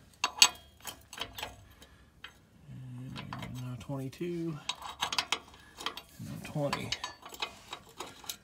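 Steel wrenches clicking and clinking as they are fitted onto a rusty lower shock bolt and its nut one size after another, to find which fits. The sharp metal clicks come irregularly, the loudest about half a second in.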